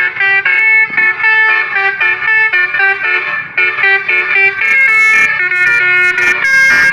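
Bus basuri telolet horn playing a fast tune of short stepped notes, several horn tones sounding together, with longer held notes near the end.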